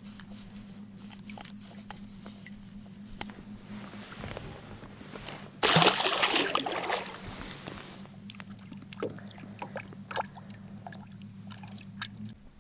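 A loud splash of water about six seconds in, lasting about a second, over a steady low hum that stops near the end, with scattered small clicks.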